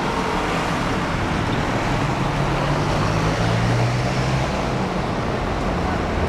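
Steady street traffic noise, with a passing vehicle's low engine hum swelling about two to four seconds in.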